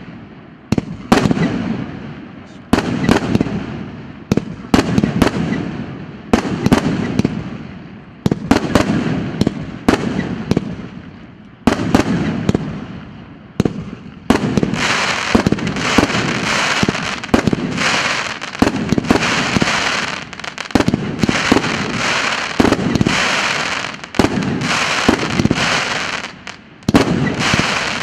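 A 100-shot, 1.5-inch fireworks cake firing shot after shot, each a sharp bang that dies away in a rumble, about one a second. From about halfway a dense, continuous hiss fills the gaps between the bangs.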